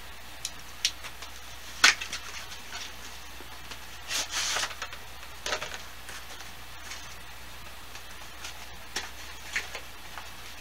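Small cardboard box being opened by hand: scattered clicks and rustles of the flaps and packaging, with a sharp snap about two seconds in and a short scraping rustle around four seconds in.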